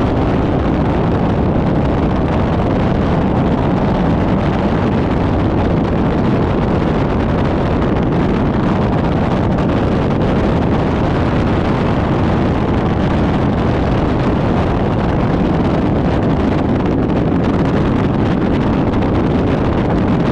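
Bass boat running at speed, its outboard motor's steady drone mixed with heavy wind rushing over the microphone.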